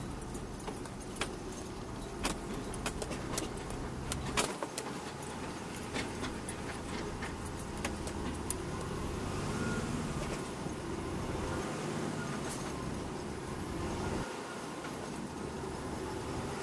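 Cab noise of a Volvo VM truck driving on a rough dirt road: the diesel engine runs steadily under rattling cab fittings and frequent sharp clicks and knocks from the bumpy surface, most of them in the first few seconds.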